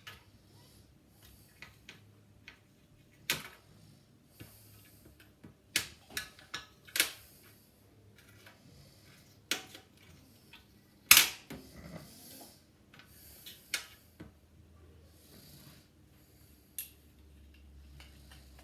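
Scattered sharp clicks and knocks of lightsaber hilt parts being handled and fitted together, a dozen or so at irregular intervals, the loudest about eleven seconds in.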